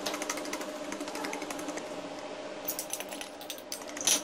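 Hand-held wire whisk beating egg into thick cake batter in a plastic bowl: a fast, uneven run of ticks as the wires strike the bowl, with a sharper click near the end.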